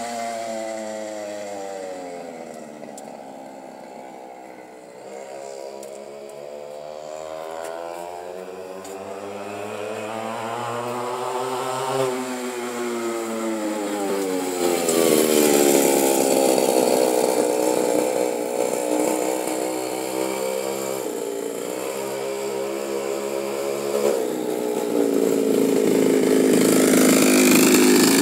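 Homemade mini bike's small two-stroke engine running, its pitch rising and falling with the throttle. It fades as the bike rides away, then grows louder as it comes back, and is loudest in the second half.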